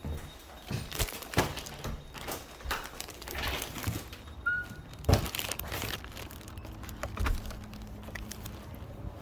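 Crinkling and rustling handling noise with irregular clicks and knocks; the sharpest knocks come about one and a half and five seconds in.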